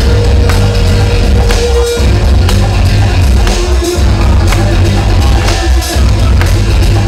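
Loud music with heavy bass and a steady beat.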